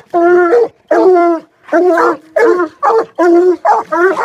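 Coonhounds, a Black and Tan and a Treeing Walker, barking hard at a raccoon in a cage: a rapid run of loud, ringing barks about two a second.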